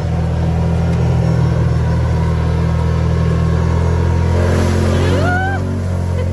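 Side-by-side off-road vehicle's engine running at a steady speed, with a short rising tone near the end.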